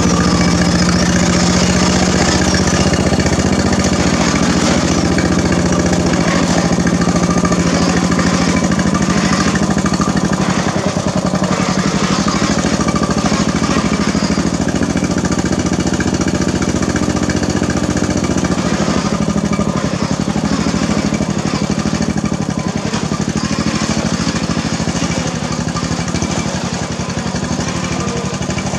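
Engine of a pulley-swapped Craftsman LT1000 riding mower running steadily and loud as the mower crawls over rocks, easing off a little past the midpoint.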